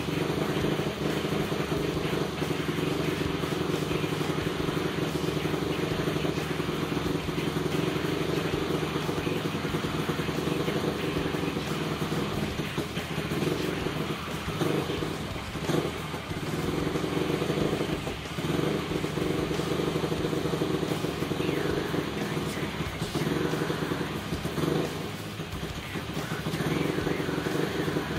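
Honda TRX450R quad's single-cylinder four-stroke engine, rebuilt to 501cc with a +3mm stroker crank and big bore kit, running steadily at low speed with a few brief dips and wavers.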